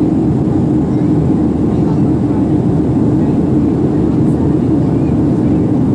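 Steady cabin noise of a Boeing 737-800 in flight, heard from a seat over the wing: an even low roar of the CFM56-7B jet engines and airflow, with no change in pitch or level.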